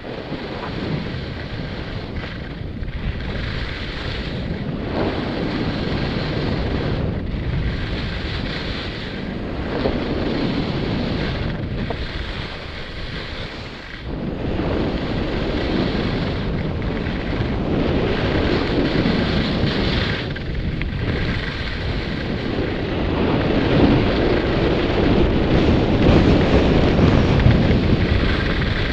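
Wind rushing over a helmet camera's microphone during a fast downhill ski run, mixed with the hiss and scrape of skis on groomed snow. The noise dips and swells every two seconds or so with the turns, and grows louder toward the end.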